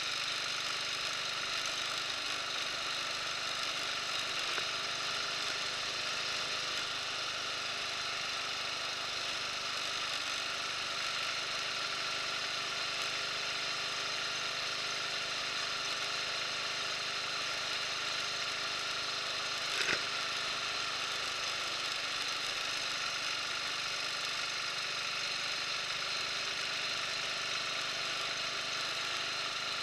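Buell motorcycle engine running steadily while the bike cruises, the sound even throughout with no change of speed. One short sharp click stands out about twenty seconds in.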